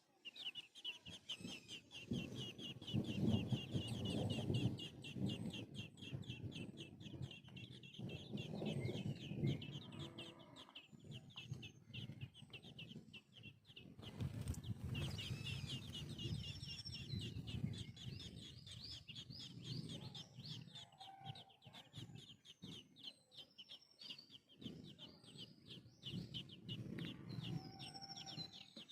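Baby birds cheeping in a rapid, continuous run of high begging chirps as they are fed. Louder low, rough sounds come and go underneath, strongest a few seconds in and again around nine seconds.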